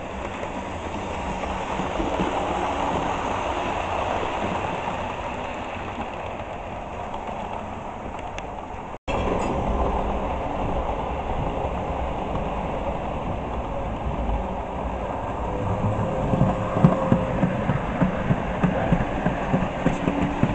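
Model trains running on a layout track: a steady rolling rumble of motor and wheels. In the second half a long rake of model wagons rolls past close by, with repeated clicks as the wheels cross the rail joints.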